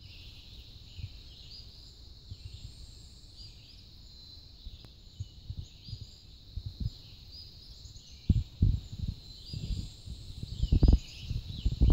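Steady chorus of small birds chirping high and fast, with low thumps and rumbles that grow louder and more frequent from about eight seconds in.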